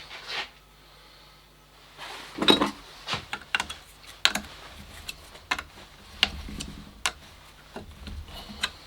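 Metal workpiece and tools clinking and knocking together as they are handled: a series of sharp, irregularly spaced clicks and taps over a faint low hum.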